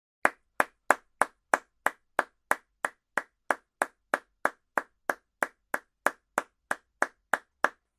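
One pair of hands clapping at a steady, even pace, about three claps a second, some two dozen claps in all.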